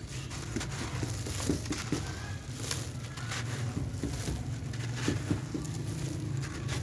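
A dry sand-cement chunk crumbling in a hand, with gritty crumbs pouring down onto a pile in a tub of wet cement paste. It is a continuous crackle of small crunches and ticks.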